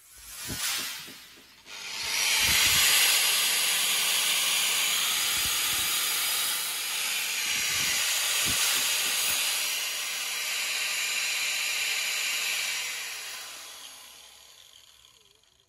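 Electric impact drill running steadily for about ten seconds with a dense, hissing rattle, then winding down and fading out, its pitch sliding lower near the end. A short burst comes about half a second in.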